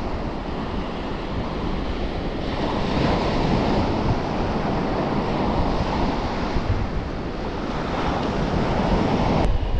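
Small waves breaking and washing up the beach, with wind rumbling on the microphone.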